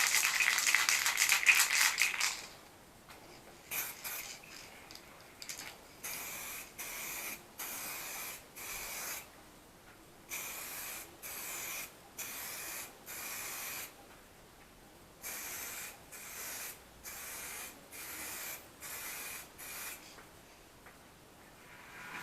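2K clear coat aerosol can shaken hard, its mixing ball rattling for about the first two seconds. Then it is sprayed in a long run of short hissing bursts, about one a second, stopping about twenty seconds in, as a fourth coat of clear lacquer goes on.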